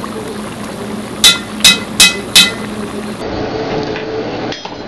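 A metal spoon clangs four quick times on the rim of a large black jambalaya pot, over a steady background hum.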